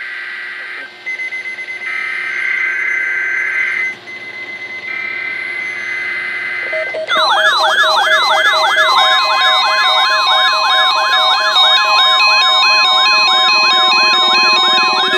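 NOAA Weather Radio SAME digital header: three bursts of raspy, buzzing data tones with short gaps between them, marking the start of an alert broadcast (here the weekly test). About seven seconds in, a loud warbling, siren-like electronic alert tone starts, and a steady high tone joins it about two seconds later.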